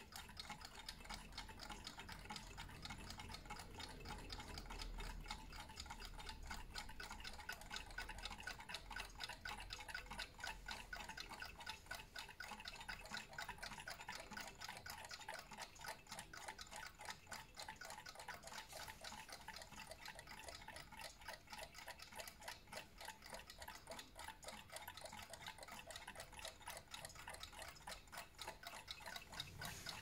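Vintage Junghans Hippo Repetition wind-up alarm clock ticking: a fast, even run of faint ticks.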